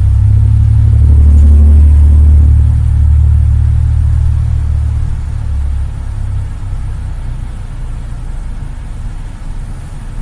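2010 Honda Civic engine running at idle, heard as a low rumble that swells over the first few seconds and eases off about six seconds in.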